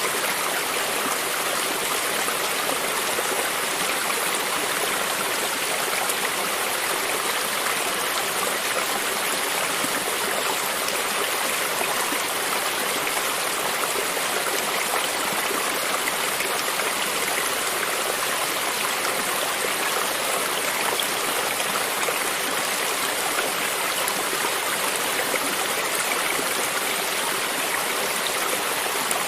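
A brook of shallow running water babbling and trickling over stones, a steady hiss with fine splashes.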